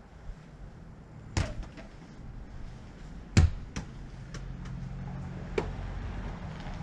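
Small play balls thrown underhand landing with sharp knocks and bouncing: two main knocks about two seconds apart, the second the loudest, each followed by a few lighter bounces. A low steady hum builds in the background about halfway through.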